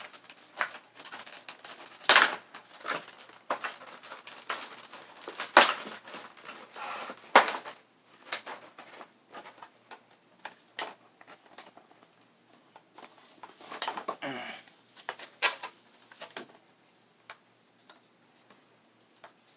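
Cardboard collection box and its packaging being handled and opened: irregular clicks, taps and crinkles, with a longer rustle about 14 seconds in and sparser clicks near the end.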